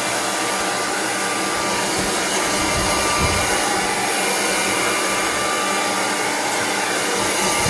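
Handheld hair dryer blowing steadily while drying a dog's wet coat after a bath: an even rush of air with a thin steady whine from its motor.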